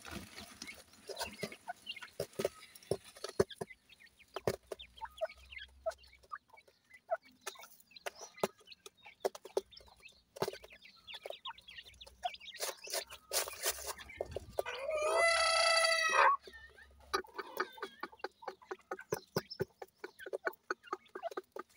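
Black francolin adults and chicks pecking at food on bare dirt: a scatter of quick taps and clicks. About fourteen and a half seconds in, one bird gives a loud, drawn-out call lasting about a second and a half.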